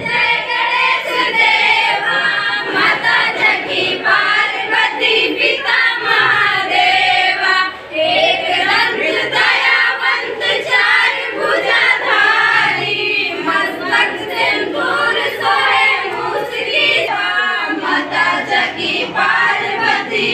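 A group of girls singing a devotional aarti together in chorus, with the voices running on without a break.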